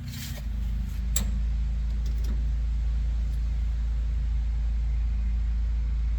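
Steady low mechanical rumble with a hum, like a running engine or machine, and one sharp click about a second in.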